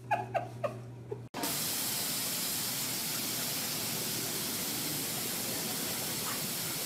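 A few short cries falling in pitch, then after a cut about a second and a half in, a loud steady hiss like water spraying from a hose or sprinkler.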